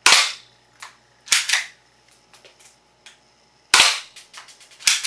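BB gun firing: sharp, loud shots, the loudest right at the start and another just before four seconds in, with smaller clicks between them and a quick run of clicks near the end.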